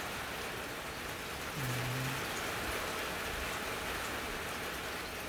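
Steady rush of heavy rain driven by a hurricane wind gust.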